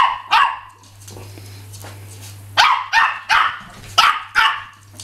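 Small terrier barking in play: two sharp barks at the start, then, after a pause of about two seconds, a quick run of about six barks.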